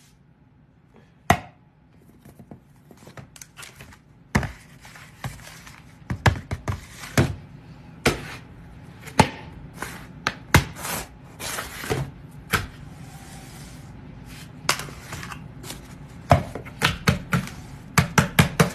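Plastic cleaning-product bottles and a canister being set down one after another on a granite countertop: a long, irregular run of sharp knocks and clacks, some in quick clusters, starting about a second in.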